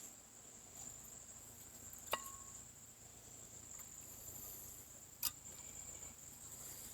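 Crickets trilling steadily in a continuous high chorus. Two sharp clicks of climbing-stick gear being handled come about two and five seconds in, the first with a brief ring.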